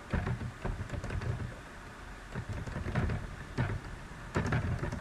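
Computer keyboard being typed on: a run of irregular taps and clicks, with dull thuds carried through the desk.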